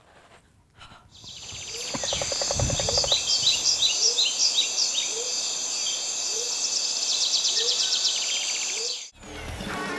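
Dense chorus of chirping birds over a steady high insect-like buzz, starting about a second in and cutting off abruptly near the end.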